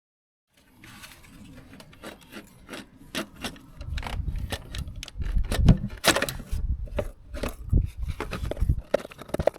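Hands and tools working in a car's engine bay: a run of clicks, knocks and rubbing of parts and cables being handled, with a few heavier thumps around the middle. The sound starts abruptly about half a second in.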